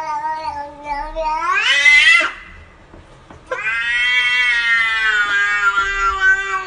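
A domestic cat meowing in two long, drawn-out calls. The first lasts about two seconds and rises in pitch at its end. After a short pause, the second is held for about three seconds and drops in pitch as it ends.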